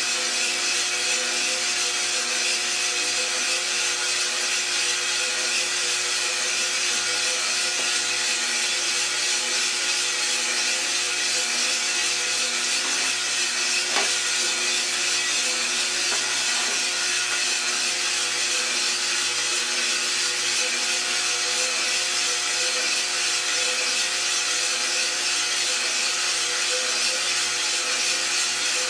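Iroaster600 drum coffee roaster running steadily: a constant motor and fan hum with a hiss, and green coffee beans tumbling in the turning drum. There is a single click about halfway through.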